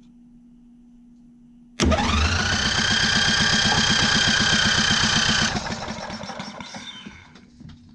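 Rebuilt Briggs & Stratton electric starter, powered from a portable jump pack, cranking a single-cylinder Briggs & Stratton lawn tractor engine that does not fire. It starts suddenly about two seconds in, a whine climbing quickly in pitch and then holding with a fast even pulse, cuts off about three and a half seconds later, and the engine coasts to a stop.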